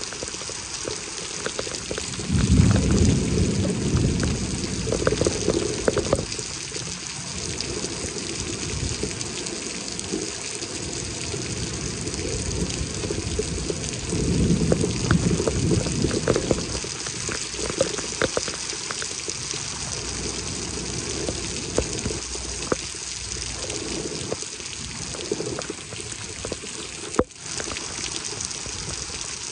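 Heavy rain pouring steadily, a constant hiss with scattered small taps, and a low rumble swelling up twice, a couple of seconds in and again about halfway.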